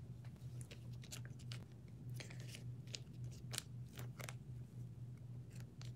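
Faint scattered rustles and light clicks of a trading card being slid into a plastic card sleeve, over a steady low hum.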